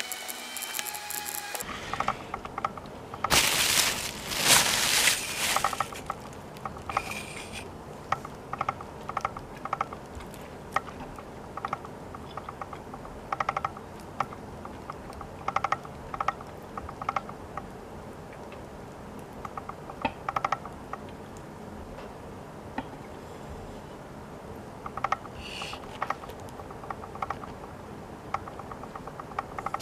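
Kitchen knife slicing cooked beef on a wooden cutting board: short groups of clicking ticks come with the sawing strokes every second or two. A loud rustle runs from about three to six seconds in.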